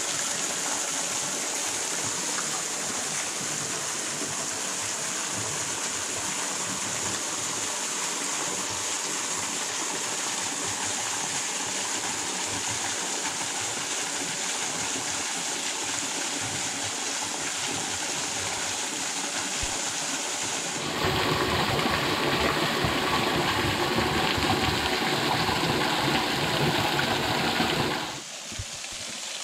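A waterfall and creek rushing steadily. About two-thirds of the way through the rush grows louder and fuller for several seconds, then drops away again near the end.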